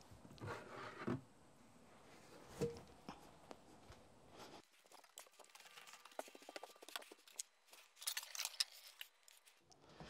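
Faint footsteps and scattered small clicks and knocks of handling as a carpet cleaner's dirty-water tank is lifted and carried across a wooden floor.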